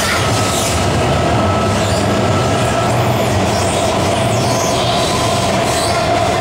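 CSR Puzhen AC18 metro train heard from inside the car while running at steady speed through a tunnel. A loud, steady rumble of wheels on rail runs throughout, with a steady whine held at one pitch.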